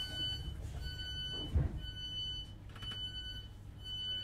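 Class 321 electric multiple unit door warning beeper sounding about once a second, five beeps each just over half a second long, over a low rumble inside the coach. A low thud comes about one and a half seconds in.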